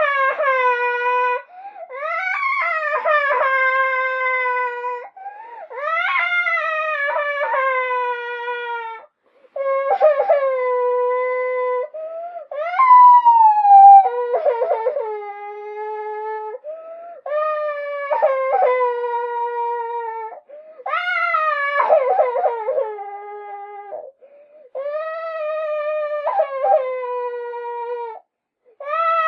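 A girl crying: about eight long, high wails, each held for a few seconds and mostly sinking in pitch, with short breaks for breath between them.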